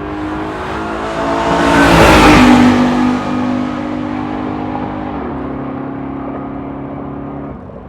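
A motor vehicle's engine passing close by, its noise swelling to a peak about two seconds in, then an engine hum that steps down in pitch a little after five seconds in.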